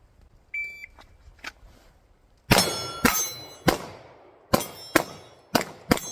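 A shot timer beeps once, then a pistol fires seven quick shots at steel targets, with the plates ringing after the hits.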